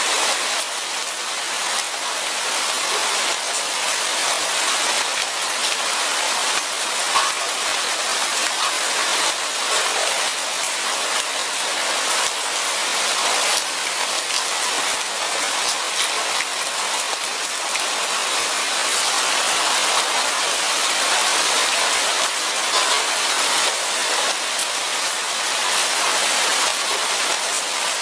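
Steady rain falling, a constant hiss with many small drop ticks on leaves and other surfaces.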